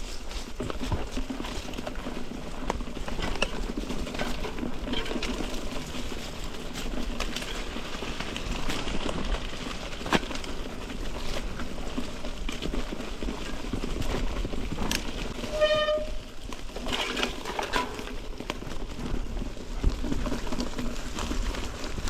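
Mountain bike riding over a rough trail: steady tyre and wind noise with frequent rattles and knocks from the bike, and one brief high-pitched squeal about two thirds of the way through.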